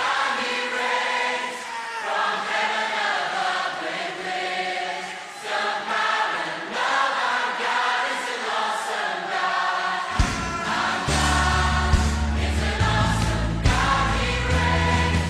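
Christian worship music with a choir singing. The bass drops out at first, then a bass line and drums come back in suddenly about ten seconds in.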